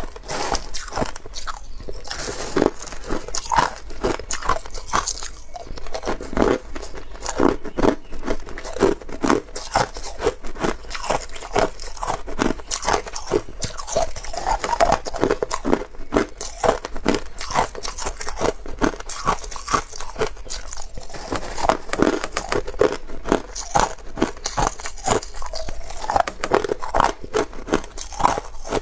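Crushed ice being bitten and chewed close to the microphone: a dense, unbroken run of crisp crunches, several a second. Fingers digging through the heap of crushed ice rustle among them.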